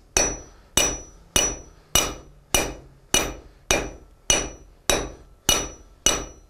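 Hand hammer striking a red-hot nail held in a nail header on the anvil, upsetting and forming the nail's head: steady even blows, about one every 0.6 s, each with a short high ring.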